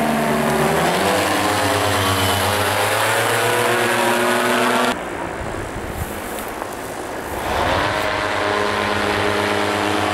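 Paramotor engine and propeller running at high power as it flies close overhead, the pitch of its drone sliding down and back up. About halfway through, the sound cuts abruptly to a quieter, more distant drone that grows louder again near the end.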